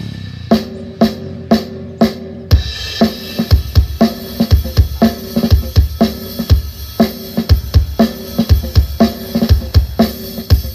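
Drum-heavy music played loud through an 18-inch subwoofer speaker cabinet: four single drum hits about half a second apart, then a full kit beat with a heavy kick drum from about two and a half seconds in.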